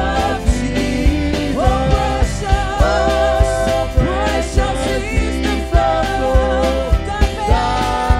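Live gospel worship music: a woman's lead vocal with backing singers over electric bass and drums keeping a steady beat.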